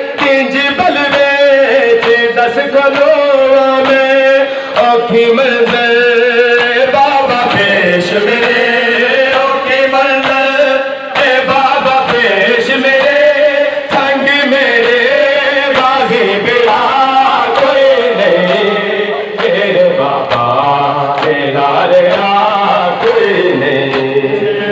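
Men chanting a noha (Shia mourning lament) in unison, with repeated slaps of hands striking bare chests in matam.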